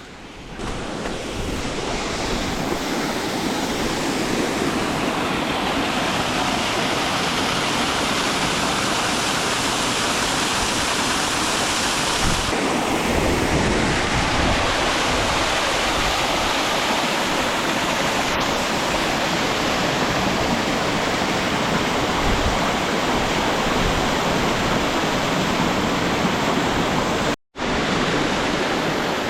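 Lower Futula waterfall pouring: a steady, dense rush of falling water. It builds up over the first couple of seconds and cuts out for a split second near the end.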